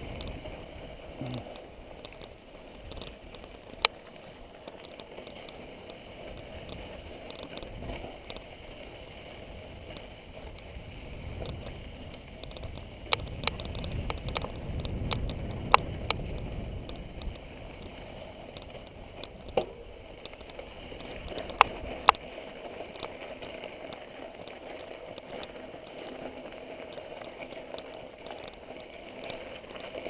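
Mountain bike riding over a dry, rocky dirt singletrack: a steady rumble and rattle of tyres and bike over the trail, with a few sharp clicks and knocks now and then as it hits rocks.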